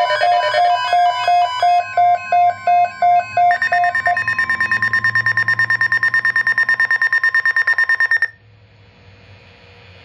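Several weather alert radios sounding their alert alarms at once, set off by a Severe Thunderstorm Watch. A pulsed beep at about two to three beeps a second stops about four seconds in, overlapped by a faster, higher-pitched beeping that cuts off suddenly near the end, leaving a faint hiss.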